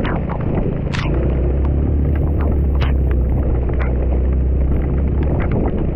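Honda Dio scooter's engine running steadily as it is ridden, with a low drone that firms up about a second in. Wind buffets the microphone, and short sharp clicks and knocks are scattered throughout.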